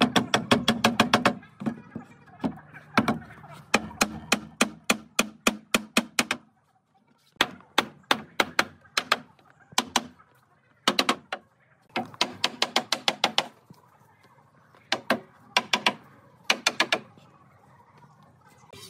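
Quick runs of sharp knocks, several a second, coming in bursts with short pauses between them.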